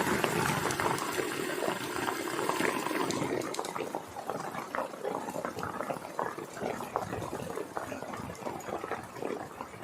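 Hail and rain falling, a dense hiss dotted with many small sharp hits of hailstones. It eases somewhat about four seconds in.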